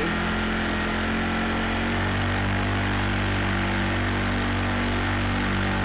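Honda 35cc four-stroke engine driving a pedal-drive kayak, running steadily under throttle close to the microphone.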